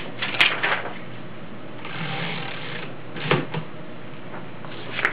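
Paper being fed into a 1915 Royal No. 10 manual typewriter. There are scattered clicks and knocks from the machine, about a second of paper sliding two seconds in, a louder knock a little after three seconds, and a sharp click near the end.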